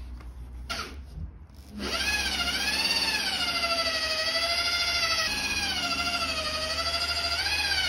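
Rotary polisher with a foam cutting pad starting up about two seconds in, then running under load on fibreglass gel coat while compounding away oxidation. Its motor whine wavers up and down in pitch as the pressure on the pad changes.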